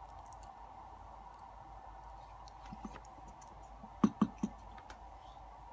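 Small metallic clicks and taps of tweezers and tiny lock pins being handled. About four seconds in come three sharper knocks as the brass lock body is picked up.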